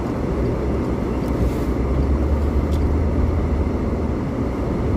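Steady low rumble of a car driving slowly on a snow-covered road, heard from inside the cabin: engine and tyre noise.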